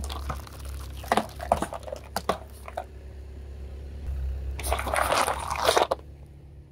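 Car tyre rolling over a row of full plastic cola bottles, the plastic cracking and popping as it is crushed. About four and a half seconds in comes a burst of hissing and crackling, lasting over a second, as fizzing cola sprays out of a burst bottle.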